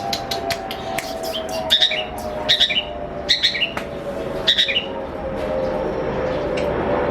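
Long-tailed shrike calling: a quick run of sharp ticking notes, then four harsh chattering calls over the next few seconds. Underneath runs a steady hum that slowly drops in pitch.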